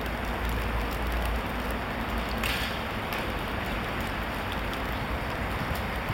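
A kyudo shot from a Japanese longbow (yumi): the release at full draw gives a brief burst of high hiss about two and a half seconds in, over a steady rain-like hiss.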